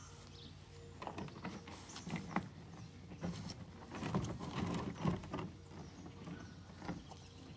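A canoe being lifted off the grass and swung up overhead: irregular knocks, bumps and rubbing from the hull as it is handled, busiest in the middle, with footsteps crunching on gravel.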